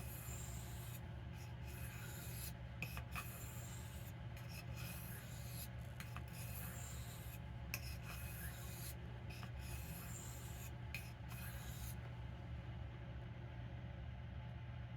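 Steel knife blade being stroked across a soft Arkansas whetstone: a faint, dry scraping hiss in repeated strokes with short pauses between them. The strokes stop about twelve seconds in, leaving only a low steady hum.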